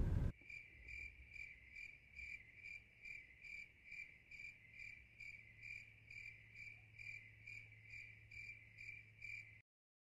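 Faint insect chirping: one high, even chirp repeating about twice a second over a low steady hum, stopping suddenly near the end.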